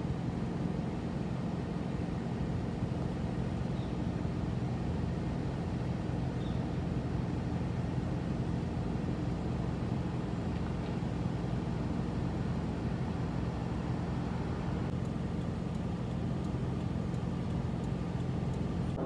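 Steady low hum of an idling vehicle engine, unchanging throughout.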